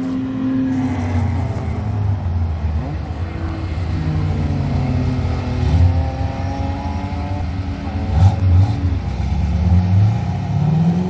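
Race car engines revving, their pitch rising and falling as several cars run on the track.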